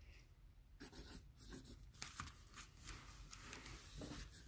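Faint scratching of a pencil writing on paper in a notebook, in short irregular strokes starting about a second in.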